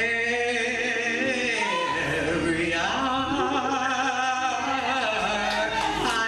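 Gospel singing: long held notes that waver in pitch, dipping about two seconds in and rising again a second later.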